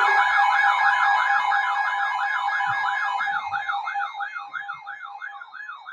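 Electronic emergency-alert siren tone, a warbling wail sweeping up and down about two to three times a second over a steady high tone, fading out gradually toward the end. It precedes a severe thunderstorm warning on weather radio.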